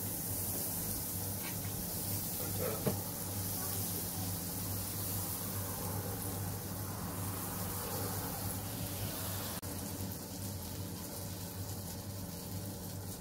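Butter sizzling and foaming as it melts in a hot nonstick frying pan, pushed around with a wooden spatula, with one light knock about three seconds in.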